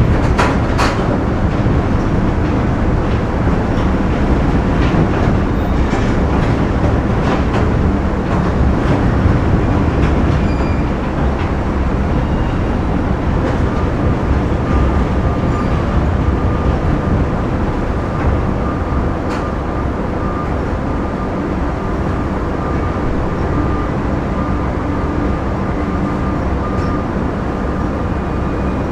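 Factory machinery running: a steady, dense rumble with scattered clanks and knocks, and a thin steady whine joining about halfway through.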